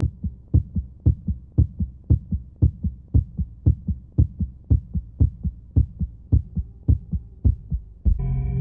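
Heartbeat sound: low paired thumps, about two beats a second, steady throughout. Near the end a sustained ambient chord of held tones comes in.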